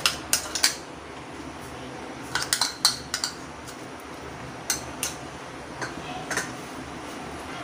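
Kitchen utensils clinking and tapping against a bowl and kadhai as ground onion-tomato paste is scraped into hot oil: sharp clicks in small clusters, a few near the start, a group about halfway and more near the end.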